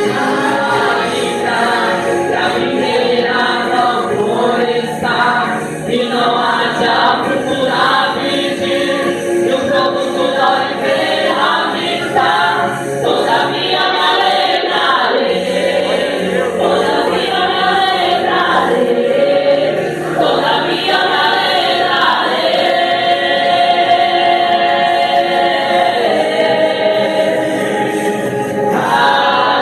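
A church praise group singing a gospel song together in several voices. About two-thirds of the way through, the voices hold one long chord before the melody moves on again.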